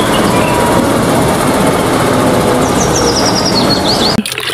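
Concrete mixer truck driving past, its diesel engine running under a dense, steady wash of noise; the sound cuts off abruptly near the end.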